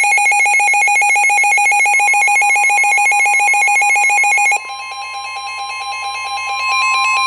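Weather-radio emergency alert tones: a loud, rapidly trilling electronic alarm that drops to a quieter pattern about four and a half seconds in. Under it, the steady NOAA Weather Radio 1050 Hz warning tone starts about two seconds in and grows louder near the end. It signals that a warning message follows.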